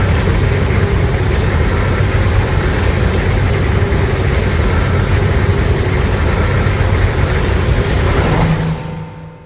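Godzilla sound effect from the Legendary films: a loud, sustained rush of noise over a deep rumble, fading away near the end.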